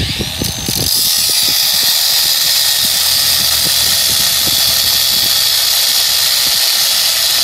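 Cordless angle grinder cutting through steel rebar with an abrasive cut-off wheel. It spins up with a brief rising whine in the first second, then runs with a loud, steady, high-pitched grinding hiss.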